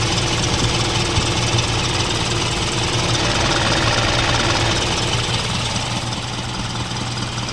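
Isuzu 4HL1 four-cylinder diesel engine running steadily at idle, after a repair that the mechanic says has cured its knock.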